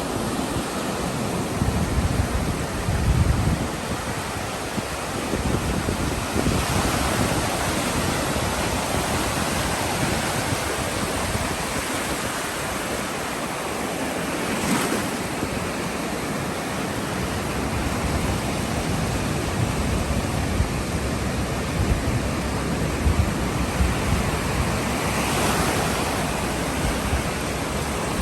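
Ocean waves washing on the shore: a steady hiss of surf that swells as a wave breaks, roughly every eight to ten seconds, with some low rumble in the first few seconds.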